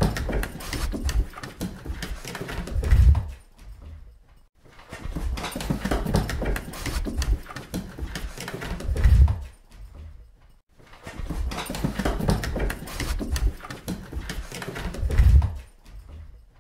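Golden Retriever running down wooden stairs: a fast patter of paw strikes that ends in a heavier thump at the bottom. Heard three times over, about six seconds apart.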